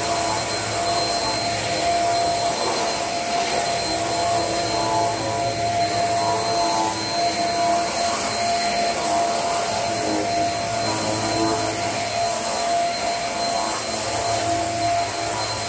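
Upright vacuum cleaner running steadily as it is pushed across the floor, its motor whine wavering and dipping a little in the middle before steadying again near the end.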